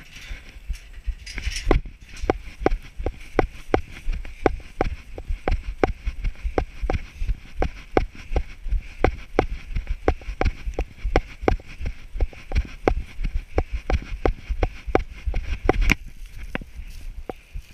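A runner's footsteps on grass, a steady beat of about three strides a second, picked up through a body-worn camera. The footfalls start about two seconds in and stop about sixteen seconds in.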